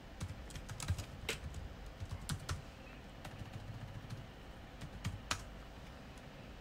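Computer keyboard keys clicking as a short heading is typed: irregular keystrokes, thickest in the first couple of seconds, with a few more about five seconds in.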